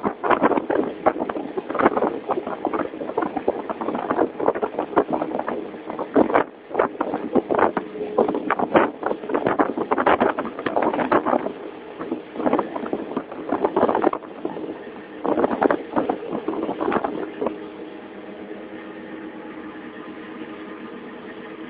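Rough, irregular buffeting and knocks on the microphone aboard a boat. About 17 seconds in, this gives way to the steady hum of the boat's engine running.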